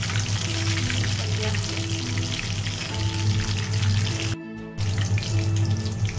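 Battered chicken pieces deep-frying in hot oil in a kadhai, a steady sizzle, under background music carrying a slow melody of held notes. All sound drops out briefly about four and a half seconds in.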